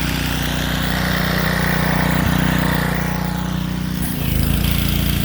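Gas-engine pressure washer running steadily, its note shifting about four seconds in.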